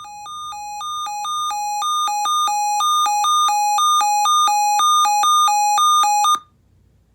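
A weather radio's alert alarm sounding for a tornado watch: electronic beeps alternating between a low and a high pitch, a few a second, growing steadily louder, then cutting off suddenly about six seconds in.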